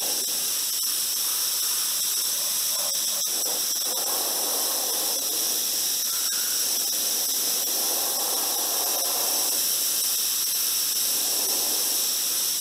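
Gravity-feed airbrush spraying white paint, a steady hiss of compressed air.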